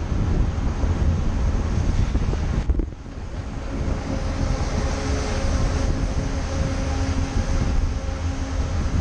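Wind buffeting the microphone of a camera on a road bike at about 40 km/h, with road-bike tyres hissing on a wet road. The wind noise drops briefly about three seconds in.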